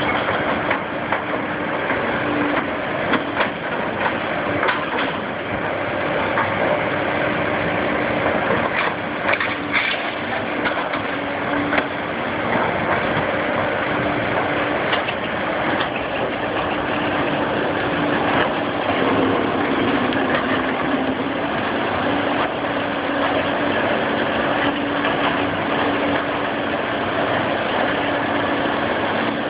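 Volvo hydraulic excavator's diesel engine running steadily as the machine works a demolition shear in concrete rubble and raises its boom, with a few short clanks and knocks, mostly in the first half.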